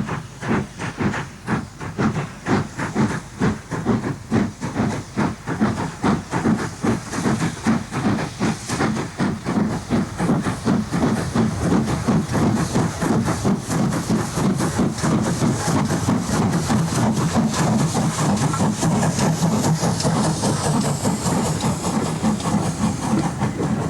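Two steam locomotives double-heading a train, a Great Central D11 4-4-0 and a Great Western pannier tank, working hard: sharp chuffing exhaust beats that quicken and, about halfway through, blend into a steady rush of steam.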